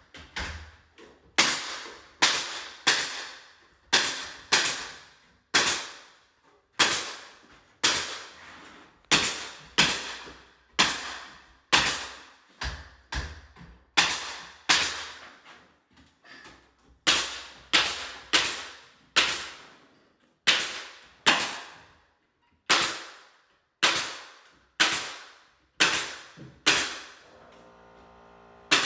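Staple gun shooting staples to fasten drywall corner bead: a long run of sharp cracks, each with a short ringing tail, about one a second and sometimes two in quick succession.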